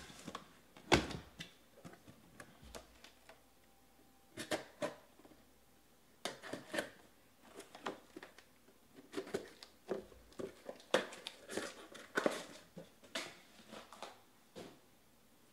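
Hands handling a cardboard shipping case and the shrink-wrapped hobby boxes taken from it: scattered knocks, taps and scrapes of cardboard, the loudest about a second in.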